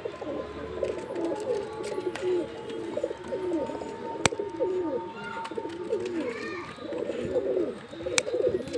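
Andhra high flyer pigeons cooing over and over, the coos overlapping one another, with a sharp click about four seconds in and another near the end.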